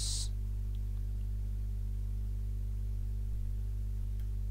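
Steady low electrical hum, with even overtones above a low base tone, the mains hum of the recording setup.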